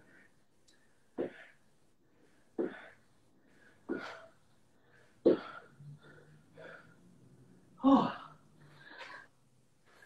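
A man's forceful breaths out with effort, a short sharp puff about every second and a half, paced with each leg-raise repetition of a floor conditioning workout. The puff near eight seconds is the loudest.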